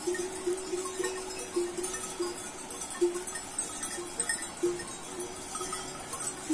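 Bells on a grazing flock of sheep and goats, clinking and ringing irregularly, a few strokes a second, as the animals move about.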